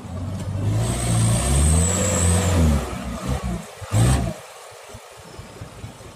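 Isuzu Elf dump truck's diesel engine pulling hard under load as it passes close by, with a thin high whistle over it; the engine sound falls away about three seconds in. A single sharp knock comes about four seconds in.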